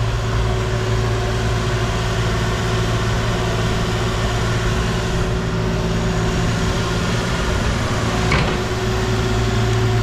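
Heavy-equipment engine running steadily at one pitch, with a single sharp knock about eight seconds in.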